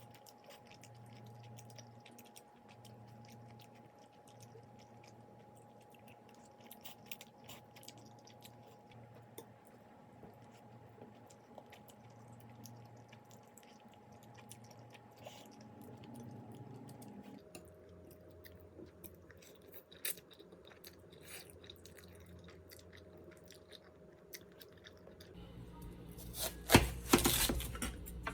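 A person chewing and crunching food close to the microphone, in many small scattered crunches over a faint steady hum. Near the end comes a louder burst of clattering.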